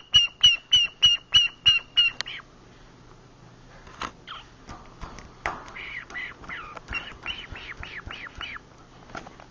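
Green-cheeked conure in its sleep, giving a run of short, evenly spaced chirps, about three a second, that stops a little after two seconds in. After a short pause it gives a string of softer chirps that bend up and down, which die away about a second before the end.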